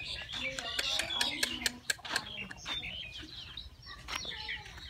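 Chickens calling, with high chick peeps among them, over background voices, with a run of sharp clicks about one to two seconds in.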